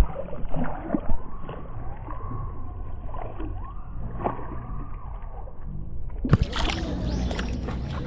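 Shallow stream water sloshing and splashing around a husky's paws and muzzle as it wades, with a few sharper splashes. It is heard muffled from right at the water's surface, and the sound clears about six seconds in.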